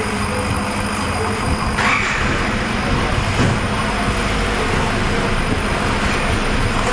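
Laser cutting machine running as it cuts a shape out of clear acrylic sheet: a steady mechanical hum, with a brighter hiss joining about two seconds in.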